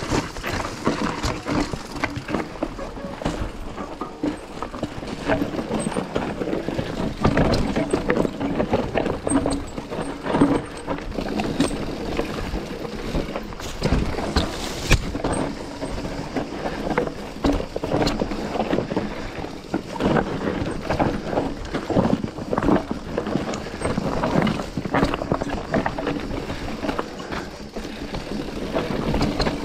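Mountain bike clattering over a rough, rocky trail on a descent: a continuous run of irregular knocks and rattles from the bike as it jolts over stones, over the noise of tyres on loose rock.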